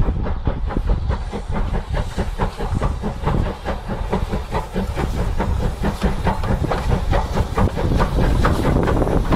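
Steam locomotive hauling a goods train past, its exhaust chuffing in a quick, even beat of several chuffs a second over the low rumble of the train on the rails.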